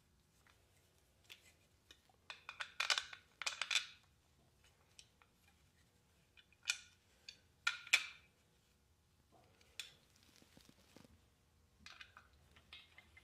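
Clicks and scrapes of metal parts and screws being handled as the kerosene torpedo heater is fitted back together. The clicks come in short clusters: two around two to four seconds in, two more around seven to eight seconds, and a lighter run near the end.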